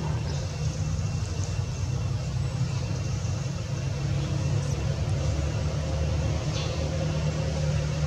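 A steady low rumble, with a few faint, short, high chirps over it.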